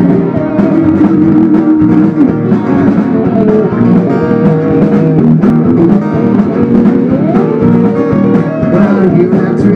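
A live band plays an instrumental passage: a strummed acoustic guitar, a bass guitar and an electric guitar. A guitar note slides upward about seven seconds in.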